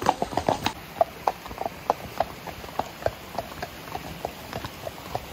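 Ridden horses' hooves clip-clopping on a wet, stony track: a steady run of knocks, about three or four hoofbeats a second.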